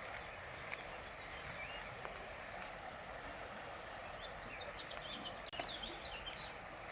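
Mountain river water rushing steadily, with forest birds chirping over it; a quick run of high chirps comes about two-thirds of the way through.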